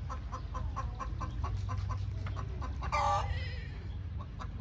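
Chickens clucking in short, rapid pulses, with one louder squawk about three seconds in.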